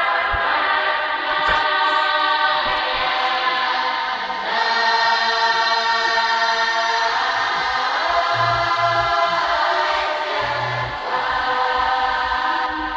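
Choral music laid over the video: a choir singing long held chords that change slowly.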